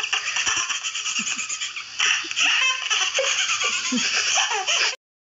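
A baby laughing hard, peal after peal, cutting off abruptly near the end.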